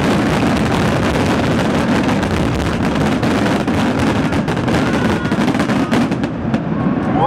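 Fireworks finale barrage: many shells bursting in quick succession with crackling, forming a dense continuous rattle that thins out about six seconds in.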